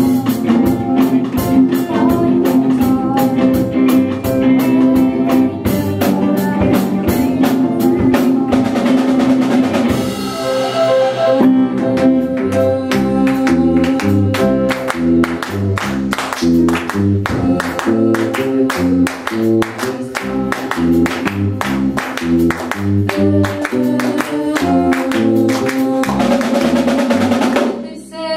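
Live rock band playing with drum kit, electric bass and electric guitars, the drums keeping a steady driving beat. About ten seconds in the drums stop for a moment, then come back under a bass line stepping from note to note; the sound dips briefly near the end.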